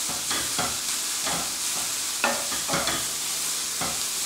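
Shredded cabbage sizzling in oil in a frying pan, stirred and turned with a wooden spoon: a steady sizzle with repeated scraping strokes, roughly one or two a second.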